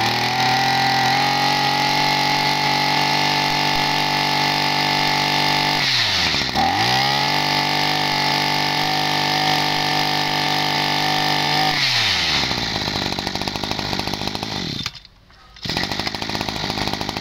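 Maruyama KC20 20cc two-stroke brush-cutter engine running at high throttle. It drops back and climbs again about six seconds in, then falls back to idle around twelve seconds in. Near the end the sound cuts out briefly.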